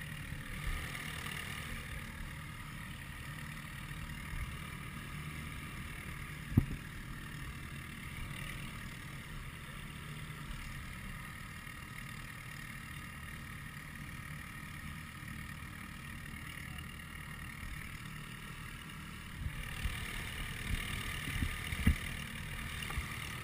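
Steady low rumble of a light aircraft's piston engine idling, with one sharp click about six and a half seconds in and a few knocks near the end.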